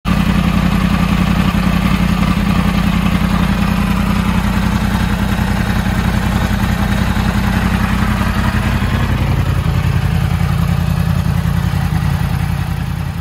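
Yamaha YZF-R1's crossplane inline-four engine idling steadily, fading out near the end.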